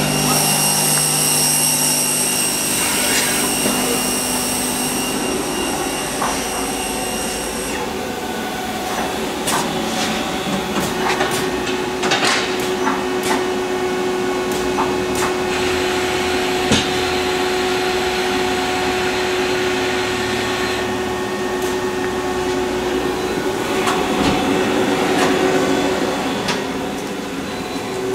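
Tsugami S25D CNC Swiss lathe running, a steady machine whine whose pitch and level change every few seconds, with scattered sharp clicks.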